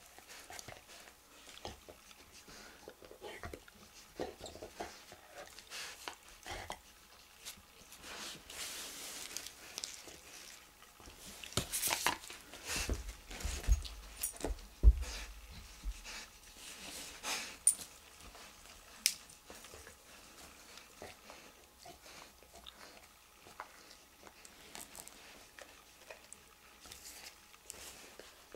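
Small metal clicks and handling noises of tweezers and cutters working at a skin staple close to the microphone. The clicks come in a busy cluster through the middle, with a brief low rumble of handling.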